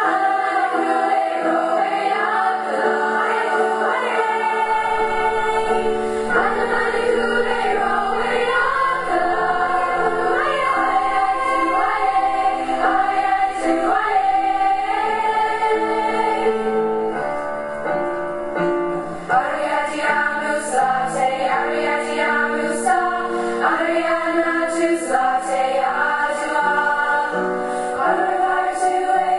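Choral music: a choir singing a slow piece of long, held chords, with a low bass part coming in about four or five seconds in and a brief softer passage just past halfway.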